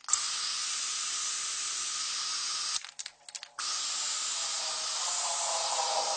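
Steady hiss, cut off about three seconds in by a brief patch of crackling clicks, then hissing again.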